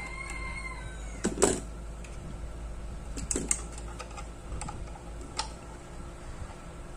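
Light plastic clicks and rattles of wires and a connector being handled inside the sheet-metal housing of an ion blower, as a loose connector is reseated, with the sharpest click about a second and a half in. A steady low hum runs underneath.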